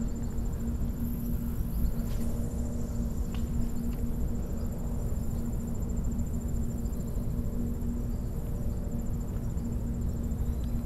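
Insects trilling without a break in a high, finely pulsing tone, over a steady low rumble and hum.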